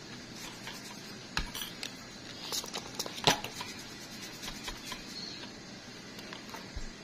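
Light clicks and scraping of metal nail-care tools being handled and worked at a toenail, scattered over a few seconds, with one sharper click a little over three seconds in. A faint steady hiss underneath.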